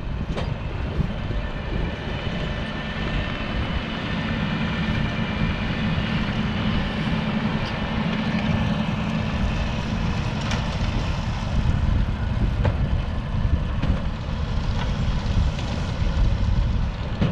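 Claas Arion 650 tractor running steadily while working a McHale Fusion round baler, a constant low drone with a faint high whine over it and a few short knocks.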